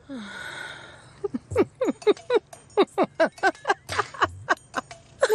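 A long breathy exhale, then a run of laughter in quick short bursts, each falling in pitch.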